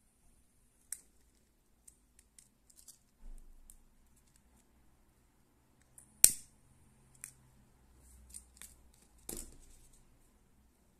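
Butane lighter held to the cord ends to melt and seal them: its gas hisses and stops with a click about a second in, then a loud click about six seconds in is followed by a short hiss, amid small clicks of the lighter and cord being handled. A scratchy click near the end.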